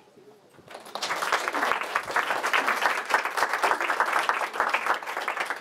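Audience applauding: dense, even clapping that starts about a second in.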